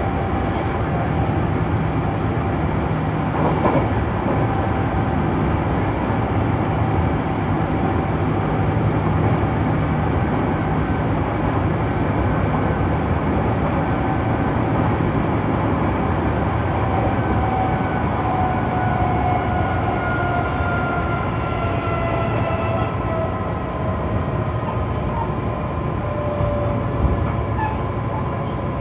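Kintetsu 6020 series electric train running, heard from inside the front car: a steady rumble of wheels and running gear, with a single knock a few seconds in. Over the last ten seconds or so a whine from the drive slides down in pitch.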